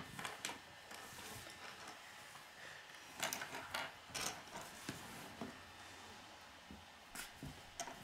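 Small plastic Lego pieces being handled, clicking together and tapping as they are set down on a wooden table: a few faint, scattered clicks.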